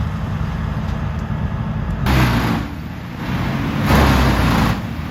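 440-horsepower wood chipper running with a steady low engine drone. Two louder surges of rushing noise come about two and four seconds in, as the machine works harder.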